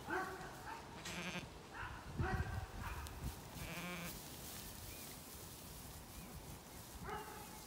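Zwartbles lambs bleating: several separate calls, some with a wavering quaver, in the first few seconds, then a quieter stretch of about three seconds before one more short bleat near the end.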